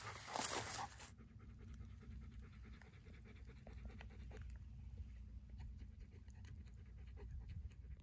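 A black Labrador panting hard, worn out from walking on three legs. The panting is louder for about the first second, then drops suddenly and carries on more quietly.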